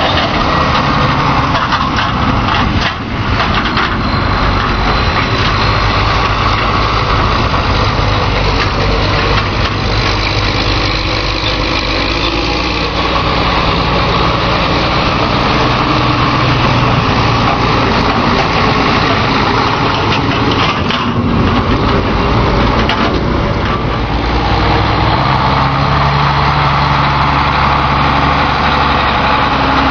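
Diesel engine of large farm harvest machinery running steadily under load, the engine note shifting about three-quarters of the way through.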